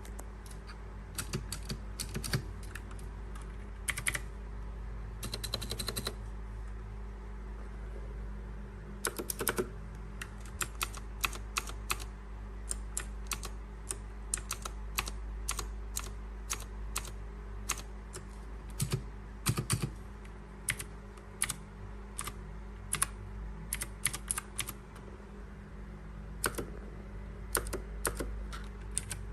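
Typing on a mechanical keyboard fitted with PBT pudding keycaps in OEM profile: irregular runs of key clacks with short pauses.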